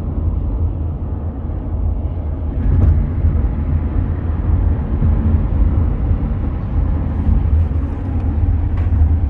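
Steady road and engine rumble of a car at highway speed, heard inside the cabin.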